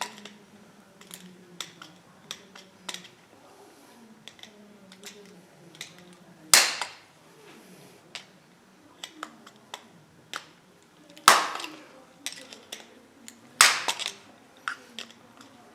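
Metal-on-metal knocks and taps as a bearing is driven out of an air impact wrench part, struck with a stand-in for a hammer: a string of light clicks with three much louder strikes, the first about six and a half seconds in and two more close together near the end.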